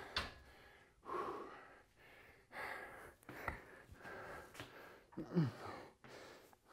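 A man breathing hard in heavy, gasping breaths, out of breath from exertion, with a short falling groan about five seconds in. A single light click comes about halfway through.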